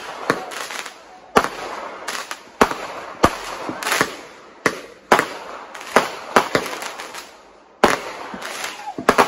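Consumer aerial fireworks going off: a rapid, irregular string of sharp bangs, one to three a second, with hissing between them. There is a brief lull about seven seconds in, before the bangs resume.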